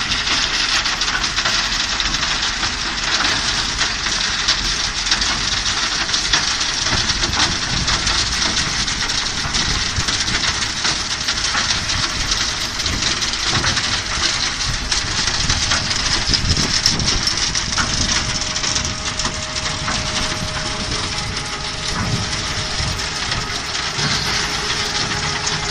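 Sand sieving machine running: electric motors, belt conveyors and a screen working, with sand and grit pouring through and off the conveyor. A steady, dense hiss peppered with many small ticks and rattles.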